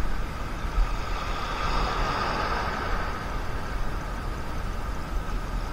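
Wind buffeting the microphone, with uneven low rumbling gusts, over the steady wash of shallow sea water over a reef flat.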